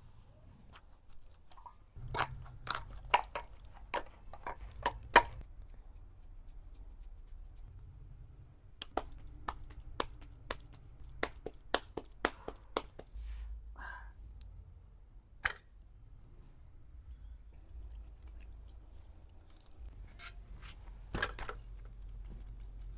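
Kitchen utensils clicking and knocking in short clusters of sharp taps, with a faint low hum between them.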